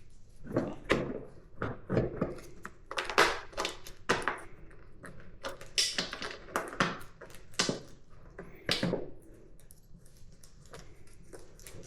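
Irregular clicks, taps and knocks of hand tools and small metal parts being handled and fitted during motorcycle assembly, in clusters with short pauses, quieter for a stretch near the end.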